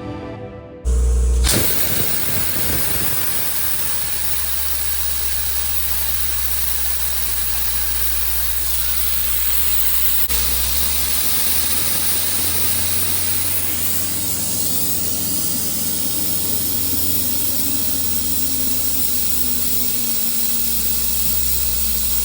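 Abrasive blasting through a 12-inch Kennametal "Super Stick" long-venturi #4 blast nozzle at 100 PSI: a loud, steady hiss of air and abrasive, with a low hum under it. It starts suddenly with a thump about a second in and then runs without a break. The speaker puts this nozzle at 101 decibels.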